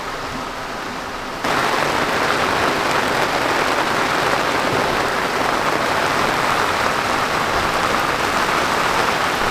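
Steady hiss of heavy rain from a dubbed-in rain sound effect. It jumps abruptly louder about a second and a half in and then holds even.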